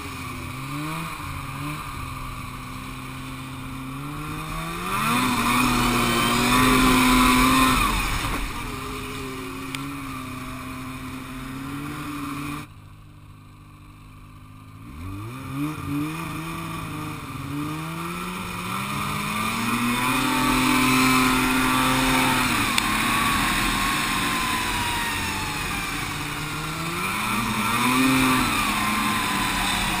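Snowmobile engine running under throttle, its pitch rising and falling as the rider speeds up and eases off. About halfway through it drops suddenly to a much quieter low speed for a couple of seconds, then revs back up.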